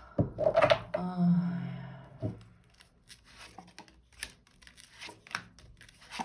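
Tarot cards being handled: drawn from the deck and laid down, a scattered series of short papery snaps and taps in the second half.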